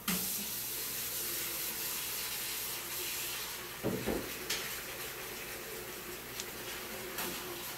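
Water running from a tap, a steady hiss that starts abruptly, with a short dull thump about four seconds in.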